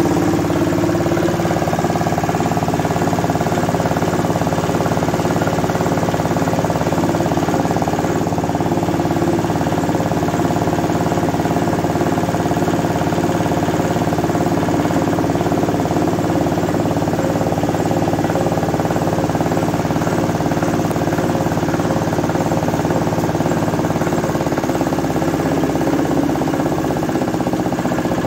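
Old 8 hp diesel engine running steadily, driving a rice mill's huller.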